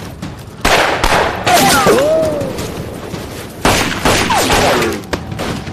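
Pistol shots in a gunfight, sudden and loud, each trailing off in a smear of echo lasting about a second: one shot under a second in, another soon after, and another a little before the four-second mark.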